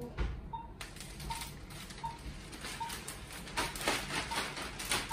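A large clear plastic drape sheet is unfolded and shaken out, crinkling from about a second in and louder in the second half. Under it, a patient monitor beeps steadily, about once every three-quarters of a second, in step with the pulse.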